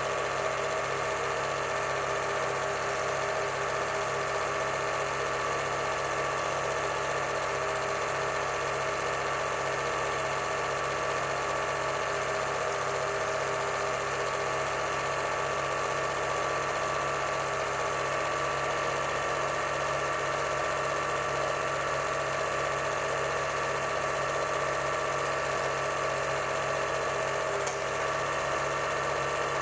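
8mm cine projector running steadily, a constant mechanical hum with a few fixed tones.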